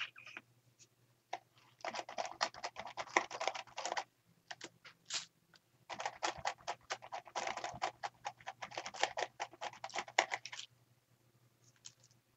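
Rapid scratchy dabbing of paint onto a journal page through a plastic stencil, in two bouts of quick taps with a short pause between them.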